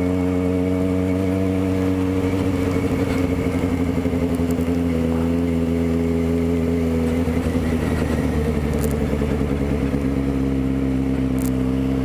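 Motorcycle engine running at low, steady revs while riding, heard from the rider's position. Its note wavers for a few seconds in the middle, then settles again.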